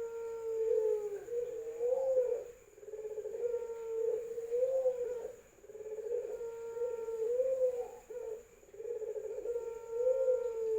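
Puter pelung doves giving long, drawn-out cooing calls, about four in a row, each held for around two seconds with short pauses between.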